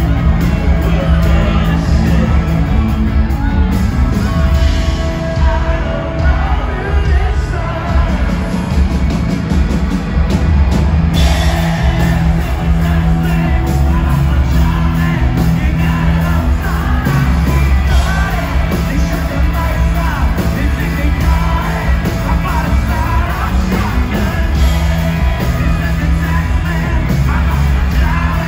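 Rock band playing live: a lead singer singing and shouting over electric guitars, bass guitar and drums, loud and bass-heavy as picked up from the audience.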